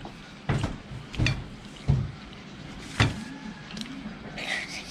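A few separate sharp knocks and clinks of tableware, roughly one a second, with the loudest near the middle.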